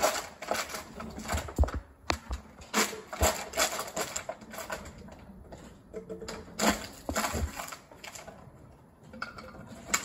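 Irregular clicks, knocks and rustles of a smartphone being handled and moved about, busier in the first half and sparser towards the end.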